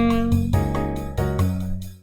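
Saxophone holding a note over a jazz backing track of keyboard chords and bass, deliberately dwelling on a note that clashes with the chord. The sax note ends about half a second in, leaving the backing chords hitting in an even rhythm.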